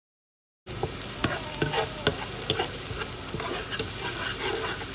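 Thinly sliced onions sizzling in hot ghee in a nonstick pan, stirred with a slotted spatula that scrapes and taps against the pan bottom. The sound cuts in suddenly just under a second in; the onions are being fried only until translucent.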